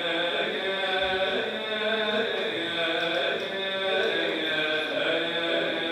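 A man's voice chanting a slow religious hymn in long, melismatic held phrases that bend gently in pitch, as used to open a Mevlevi sema ceremony.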